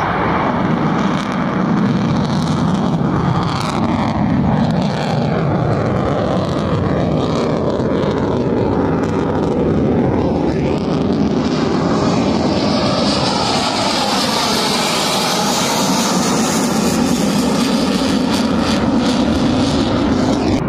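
Sukhoi Su-30MKM fighter's twin AL-31FP turbofans running loud and steady as the jet climbs and manoeuvres overhead. The noise seems to sweep up and down in pitch as the aircraft's distance and angle change.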